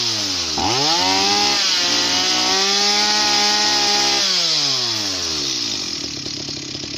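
Two-stroke chainsaw revved up just under a second in, held at high revs for about three seconds, then let back down to idle.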